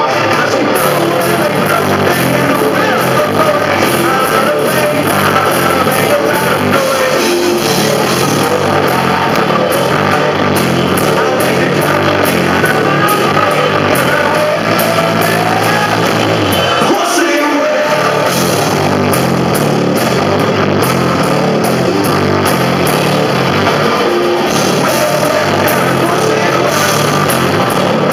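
Live rock band playing a loud, steady song with guitar, drums and a singer. The low end drops out for a moment about seventeen seconds in.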